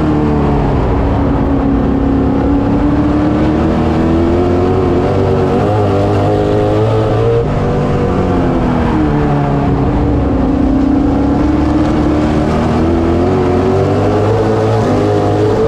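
Street stock race car engine at racing speed, heard from inside the cockpit. Its revs sink and climb again twice, lifting for the turns and opening up down the straights.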